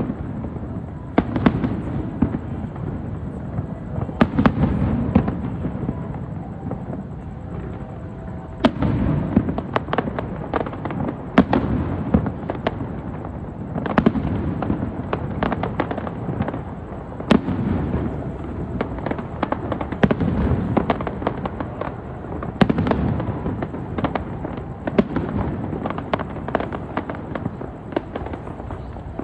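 Aerial fireworks going off in a steady barrage: many sharp cracks and bangs, often several a second, over a continuous low rumble, in bunched volleys every few seconds.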